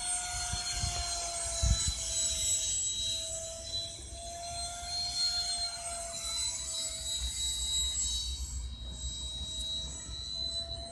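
Electric ducted fan of a Sapac EF2000 radio-controlled Eurofighter model jet whining steadily in flight, its pitch dipping and rising slightly as it flies past.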